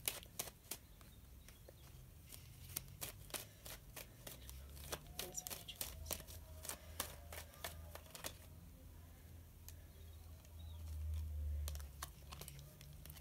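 Tarot cards being handled and shuffled: a run of quick, irregular light clicks and snaps of card stock, thickest at the start and near the end, over a faint low hum.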